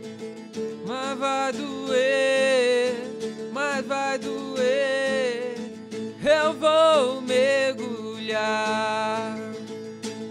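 Acoustic guitar plugged in direct, strummed steadily, with a man singing into a microphone in four phrases over it: the vocal-and-guitar mix as sent out to a live stream.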